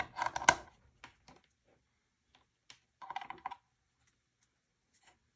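Small clicks and rattles of plastic plugs and cables being handled, a USB cable being plugged into the ports of a voltage converter. There are a few quick clusters of clicks, near the start, about a second in and about three seconds in.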